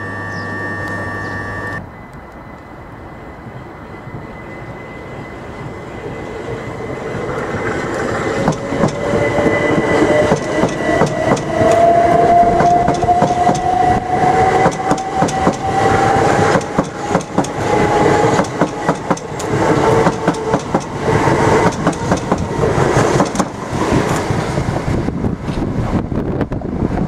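Electric multiple-unit trains passing at close range over points: wheels clattering over rail joints and crossings, with an electric traction motor whine rising steadily in pitch as one train accelerates. It grows louder from about six seconds in and stays loud. The first two seconds are a steady hum with high tones from a train standing at a platform.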